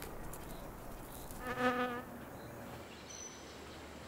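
A flying insect buzzing briefly: one short, steady-pitched wing hum about a second and a half in, over a faint background hiss.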